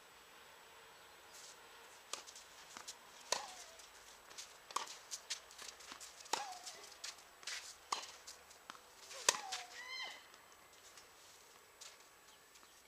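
Tennis rally: a racket strikes the ball about every one and a half seconds, five solid hits in all, with lighter ball bounces and footsteps on the court between them. The play stops a little after the last hit.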